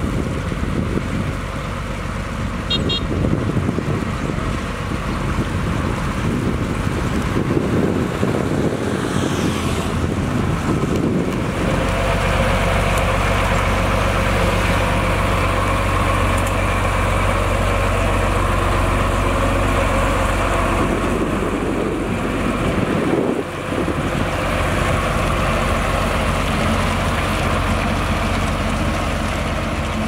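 Komatsu GD625A motor grader's diesel engine running as the grader drives over wet gravel. It is rough and uneven for the first ten seconds or so, then settles into a steady engine drone from about 11 seconds in, with a brief drop near 23 seconds.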